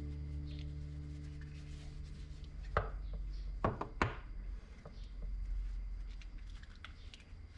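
Metal hand tools set down on a wooden workbench, three sharp knocks a little under three to four seconds in, with soft rubbing of a cloth shop rag wiping the tools.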